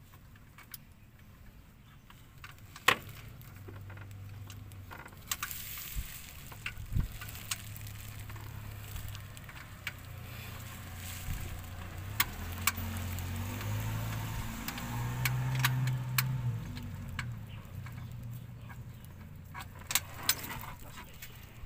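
Hand tools clicking and clinking on metal while a car's A/C compressor and its clutch are worked on, with scattered sharp knocks over a low, uneven hum.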